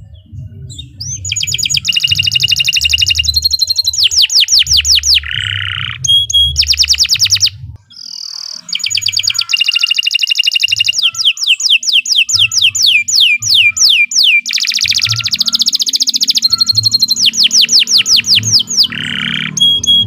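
Domestic canary singing a long, loud song of fast trills: rolls of rapidly repeated notes alternating with runs of quick sweeping whistles, changing phrase every second or two. The song breaks off briefly about eight seconds in and then carries on.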